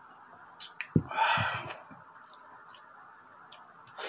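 Close-up eating sounds: wet mouth clicks and smacks while chewing rice and stew by hand. A single sharp thump about a second in is followed by a short noisy burst, and there is another burst of mouth noise near the end as a handful of rice goes into the mouth.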